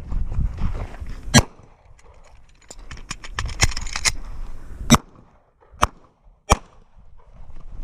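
Four handgun shots fired in an IDPA stage: one about a second in, then three more near the end, the last two close together. In between comes a quick run of small clicks and rustling.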